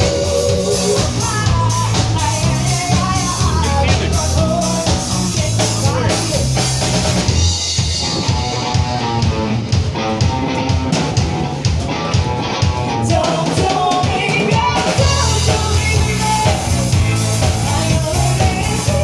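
A song playing: a singing voice over drums and a steady bass line.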